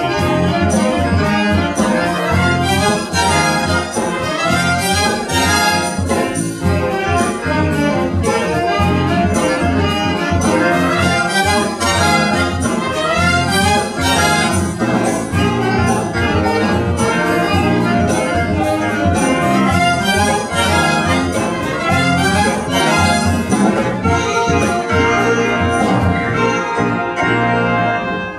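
Music led by brass instruments such as trumpets and trombones, over a steady beat.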